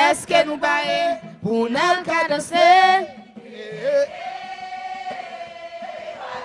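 Voices singing and chanting together: loud, lively phrases for about three seconds, then a quieter held note.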